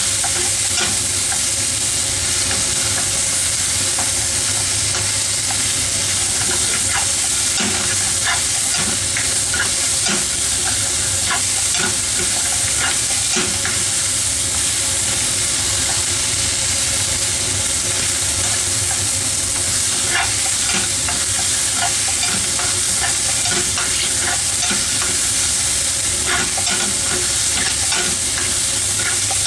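Vegetables and meat sizzling steadily as they are stir-fried in a frying pan, with a wooden spatula scraping and tapping against the pan in frequent short clicks.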